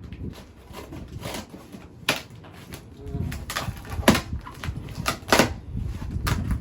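Cardboard shipping box being cut open: a blade slitting packing tape, with short sharp rasps and knocks as the box is handled. The loudest rasps come about four and five seconds in.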